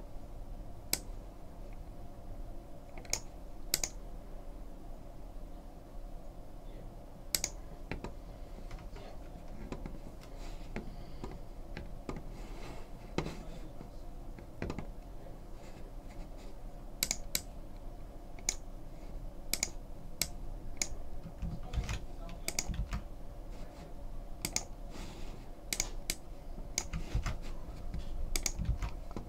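Computer keyboard typing and clicking in scattered single strokes, sparse at first and coming more often in the second half, over a faint steady low hum.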